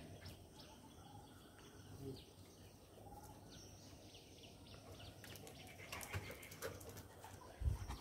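Faint outdoor background with distant birds chirping now and then, and a few light clicks about three quarters of the way in.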